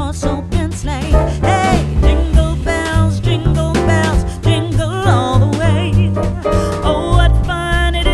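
A song with a singing voice over a band with bass and drums.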